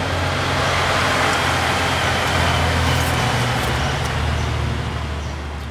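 A motor vehicle's engine running, a steady low hum with road noise, that fades out at the very end.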